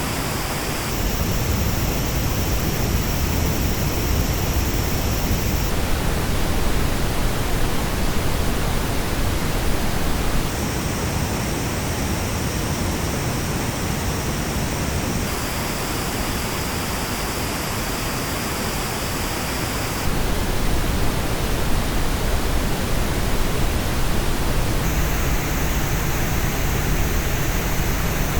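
Pink noise test signal heard through Superlux headphones, steady hiss across the whole range. About every five seconds the tone colour changes abruptly as the playback switches to another headphone model, each with its own dips and peaks in the treble.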